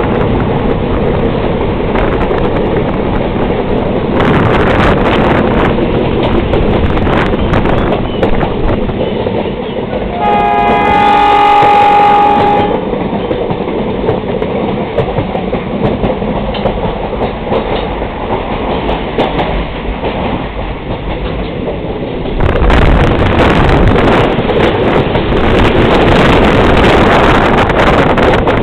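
Passenger train running, with steady engine and wheel noise. About ten seconds in, the locomotive's horn sounds once, held for about two and a half seconds. The running noise grows louder near the end.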